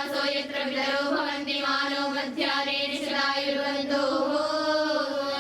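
A group of young girls chanting Sanskrit Vedic mantras in unison, a continuous sing-song recitation in held notes that step up and down, as offerings in a fire ritual (yagya).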